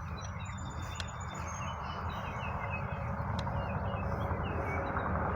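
Small birds chirping in many short calls over a steady low rumbling noise that grows a little louder toward the end.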